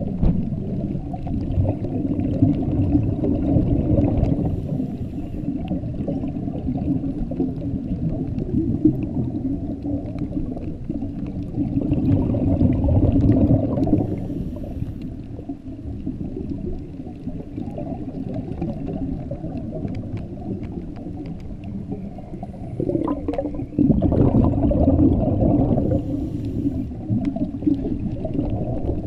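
Scuba regulator exhaust bubbles heard underwater: a muffled, low rumble of bubbling that swells in several surges as divers exhale.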